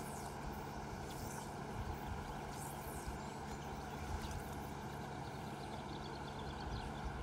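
Steady low machine hum, unchanging throughout, with a few brief faint swishes over it.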